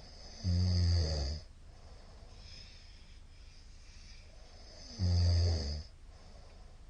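A middle-aged man snoring loudly in his sleep: two low snores about four and a half seconds apart, each under a second long, with a fainter breath out between them.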